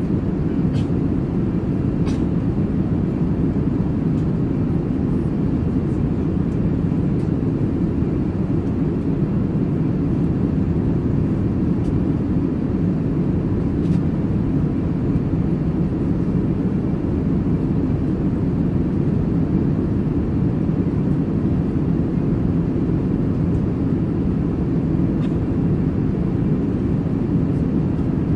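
Airbus A380 passenger cabin in flight: a steady low roar of engine and airflow noise, with a few faint clicks.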